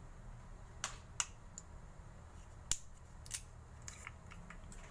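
A new jar of turmeric being opened by hand: about ten sharp clicks and snaps at irregular intervals as its seal and cap are worked free.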